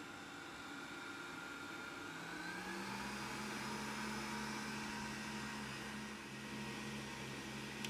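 Kenwood Cooking Chef stand mixer's motor driving its whisk through almond cream; it speeds up with a rising whine about two to three seconds in, then runs steadily at maximum speed.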